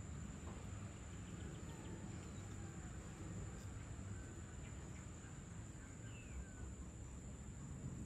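Insects trilling in a steady, high-pitched chorus, with a few faint bird chirps scattered over it and a low rumble underneath.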